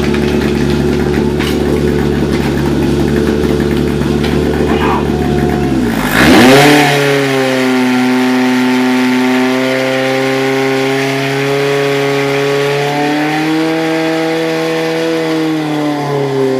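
Portable fire pump engine running steadily at low revs. About six seconds in it dips, then revs up sharply with a burst of noise, and holds at high revs as it pumps water through the hoses to the jets. The pitch steps up a little once more past the middle.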